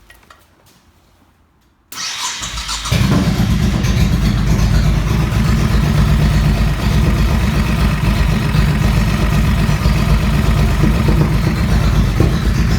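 Honda Shadow 1100's V-twin engine cranked on the starter about two seconds in, catching a second later and running steadily. It has new cam chains and hydraulic lifters, and the mechanic says the front cylinder no longer knocks, cold or hot.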